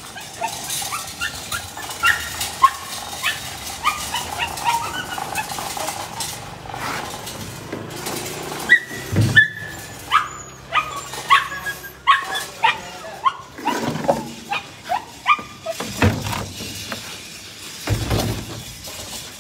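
Several dogs barking and yelping in short calls, over and over, with a few dull thumps among them.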